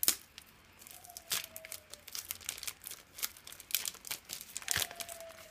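Thin clear plastic bag crinkling and crackling as hands open it and slide a card out, with a sharp crackle right at the start.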